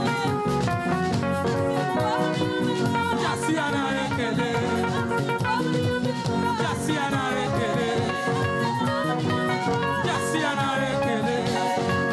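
Upbeat gospel praise music with a live band, drums and guitar under a steady dance beat, with voices singing.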